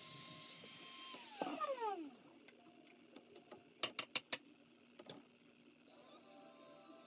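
Dremel rotary tool with a small bit running at a steady high whine, then switched off about a second in and winding down in a falling whine. Midway come four sharp clicks in quick succession, then one more.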